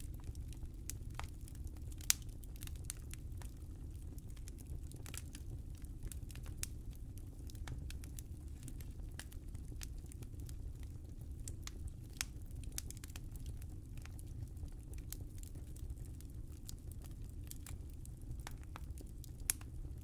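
Fire burning in a fireplace: a steady low rumble of flames under frequent small crackles and pops. A few sharper pops stand out, the loudest about two seconds in.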